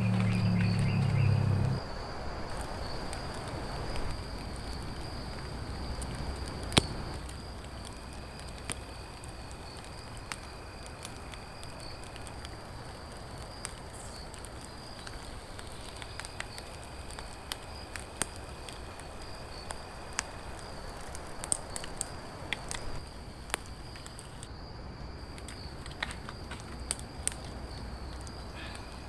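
Outdoor ambience: a steady high insect-like drone with scattered sharp clicks and crackles, more frequent in the second half, and a low hum for the first two seconds.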